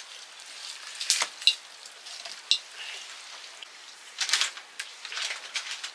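Open wood fire crackling under a wok of heating oil, with irregular sharp pops and short bursts of sizzling, the loudest about a second in and again about four seconds in.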